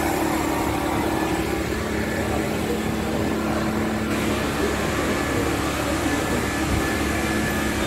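Steady machinery hum, even and unbroken, with a few held tones in it.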